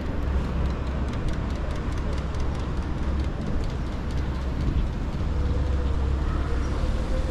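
Street traffic: a passing vehicle gives a steady deep rumble over the general noise of a city street, with a run of faint light clicks or rattles during the first few seconds.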